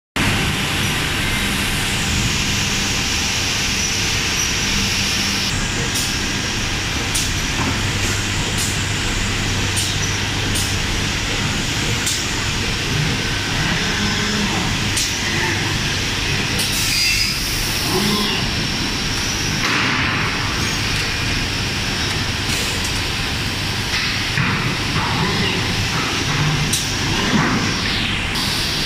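Throughfeed CNC panel drilling machine running: a steady machine and air noise with a series of short sharp clicks as it clamps and drills a cabinet panel.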